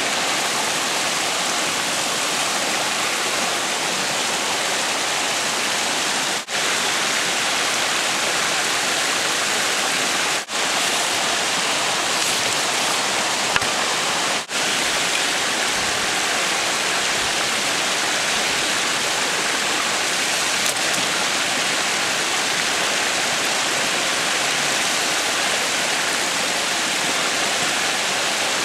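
Creek water rushing steadily, a full, even noise of running water. It cuts out for an instant three times, about four seconds apart.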